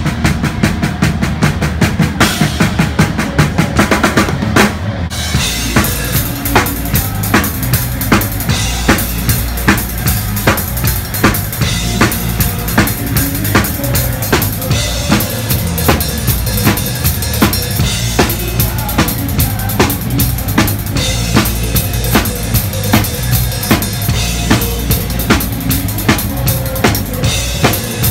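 Heavy metal drum kit played live at full volume, with the band's low end underneath: a burst of very rapid bass drum and snare strokes for the first few seconds, then a steady driving beat with crisp snare hits two to three times a second.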